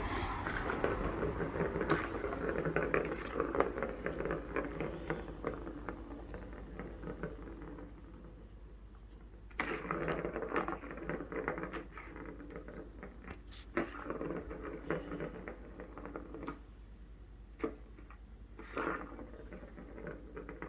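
Cats playing with a ball toy: the ball rolls and rattles among quick taps and scrabbling paws. The play is busy for the first eight seconds or so, comes back in a burst about ten seconds in, and after that is only a scattering of single clicks.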